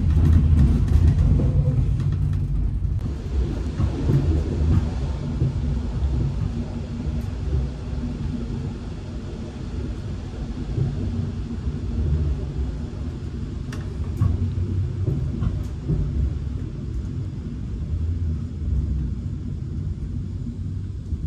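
Low, steady running rumble of a regional passenger train heard from inside the coach, wheels on rails, fading gradually as the train runs into a station. A few faint clicks come in the middle.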